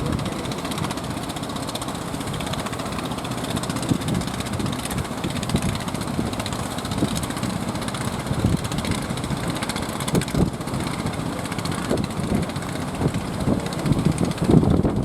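Boat under way through sea waves, a steady rushing of wind and water with wind buffeting the microphone in irregular low gusts.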